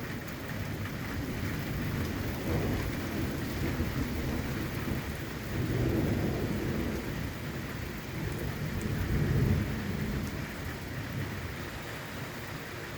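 Rain falling steadily as a thunderstorm arrives, with low rumbles of thunder swelling about halfway through and again a few seconds later.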